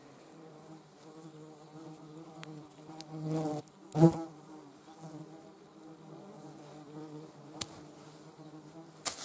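A flying insect buzzing with a steady, even hum that swells louder about three to four seconds in, as if it passes close. A sharp knock about four seconds in, and a couple of small clicks near the end.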